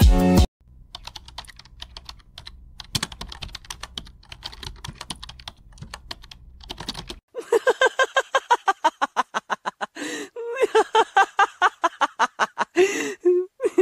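Computer keyboard typing, quick irregular clicks, for about seven seconds, then a bout of loud rhythmic laughter, 'ha-ha-ha' pulses about five a second, through the rest.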